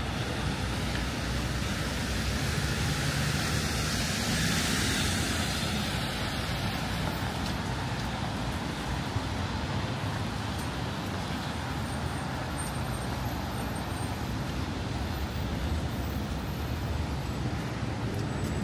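City street traffic: a steady rumble of cars and buses, with one vehicle passing about four to six seconds in, its tyre noise swelling and fading.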